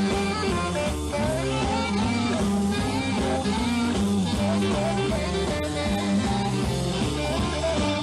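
Live blues-rock instrumental: electric guitar playing lead phrases over a band's steady bass line.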